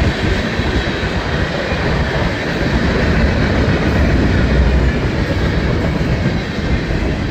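Florida East Coast Railway manifest freight train's cars rolling past close by, a steady loud rumble and rattle of steel wheels on the rails.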